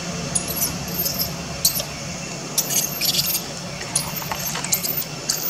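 Baby macaque giving repeated short, very high-pitched squeals in distress while its mother holds it down.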